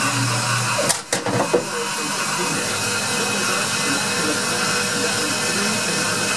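Denford Novamill CNC milling machine running: a steady whirring hiss from its motors as the table traverses along the X axis. About a second in, a low hum stops and there is a brief dip with a few sharp clicks before the steady running resumes.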